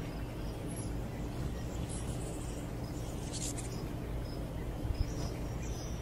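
Outdoor nature ambience: a steady low rumble with short, faint high-pitched chirps recurring every second or so.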